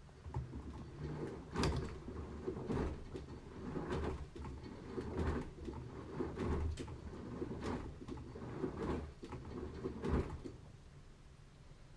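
LG washing machine drum working in its 'Stepping motion' wash action, the load tumbling and sloshing in a regular swish-and-thump about every second. It stops about ten and a half seconds in.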